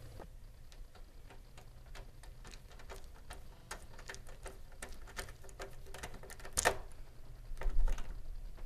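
A screwdriver driving a screw into a PC case's steel drive cage: a run of small, uneven clicks, with a louder metallic click about six and a half seconds in and a dull thump shortly after.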